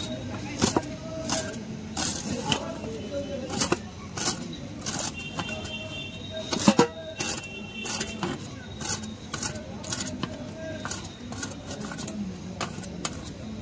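Sounds of a busy panipuri street stall: a run of sharp, irregular clicks and taps, about one or two a second, with one louder knock about seven seconds in. Brief high tones come now and then over background voices and traffic.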